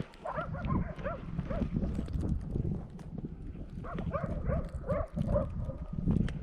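Laika hunting dogs barking in a rapid, steady run, about three barks a second. This is the bay barking of dogs holding a moose at bay. Wind rumbles low on the microphone.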